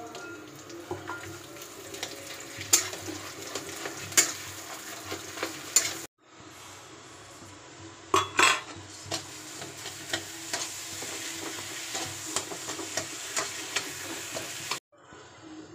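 Flat metal spatula scraping and knocking against a steel kadai while mashed potatoes are stirred and fried, over a soft sizzle, with sharp clinks of the spatula on the pan. The sound cuts out briefly about six seconds in and again near the end.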